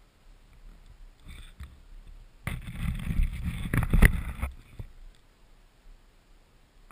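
Handling noise on an action camera: about two seconds of rubbing and scraping against the housing, with a sharp knock near the end, as the camera is tipped and set back down.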